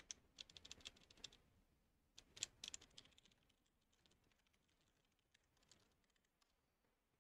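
Faint computer keyboard typing in quick bursts: a flurry of keystrokes in the first second or so, another about two and a half seconds in, then sparser scattered taps.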